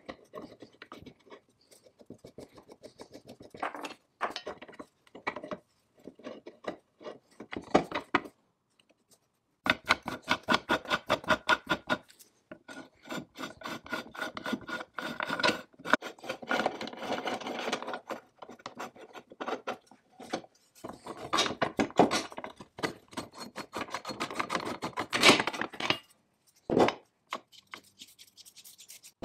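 Metal parts of a Foley saw filer being put together by hand: a threaded steel rod is screwed through a knurled adjusting wheel, and parts are fitted onto the cast-iron frame. Threads and metal surfaces rub with rapid ticking and rasping. The sound comes in spells separated by short pauses.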